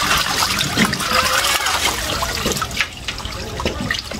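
Shallow swamp water splashing and trickling in many small, irregular sloshes, a little quieter from about three seconds in.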